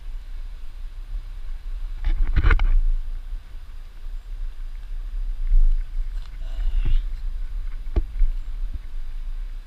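Low steady rumble of wind and handling noise on a GoPro's microphone on a selfie pole, with a brief rustling scrape about two seconds in and a couple of sharp knocks near the end.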